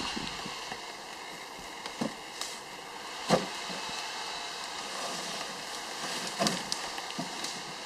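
Wooden crates burning in an open bonfire: a steady rushing noise with a few sharp knocks, the loudest about three seconds in.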